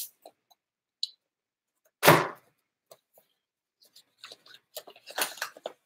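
Paper being handled as a greeting card and envelope are opened: sparse faint rustles and clicks that grow busier toward the end. About two seconds in there is one short, loud noise.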